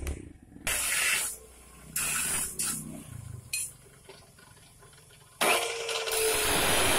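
Long wooden planks being handled and scraped against each other, heard as several separate hissing bursts of noise, the longest and loudest near the end.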